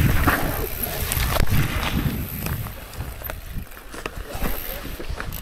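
Mountain bike rolling fast down a rough dirt trail: steady tyre rumble and grass brushing against the bike, broken by irregular knocks and rattles as it hits bumps and rocks. Louder in the first half, easing off a little after about three seconds.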